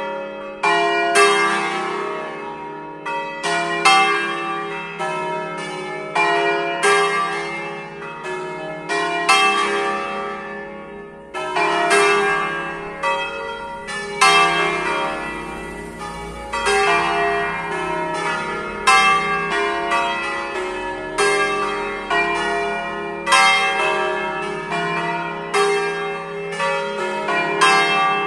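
Five swinging church bells tuned to an E-flat major scale (E♭, F, G, A♭, B♭), four cast by Giorgio Pruneri of Grosio in 1892 and 1900 and one by Luigi and Giorgio Ottolina of Seregno in 1951, ringing together in a concerto. Their strokes overlap in a continual ringing wash, with louder strokes every couple of seconds.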